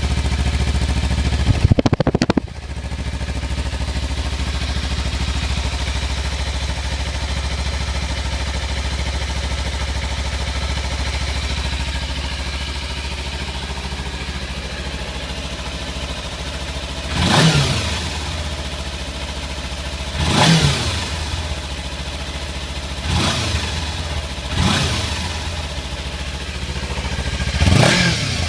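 A 2014 Kawasaki Ninja 300's parallel-twin engine through its stock exhaust, warmed up and idling steadily. There is a short loud burst about two seconds in, and in the last dozen seconds the engine gets five quick throttle blips, each rising and falling back to idle.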